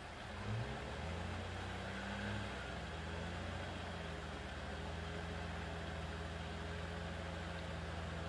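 Nissan Patrol Y60 4x4 engine running, its revs shifting up and down for the first few seconds, then holding a steady low note.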